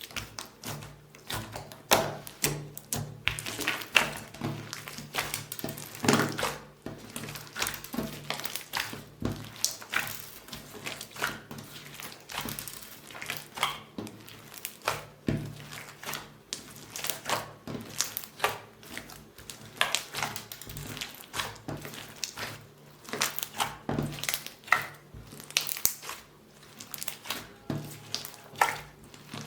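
Hands squishing and stretching beaded slime, making irregular crackling and popping clicks, several a second.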